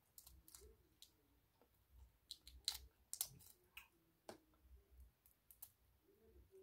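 Shrimp shells being cracked and peeled off by hand: scattered small crackles and clicks, loudest and thickest around the middle.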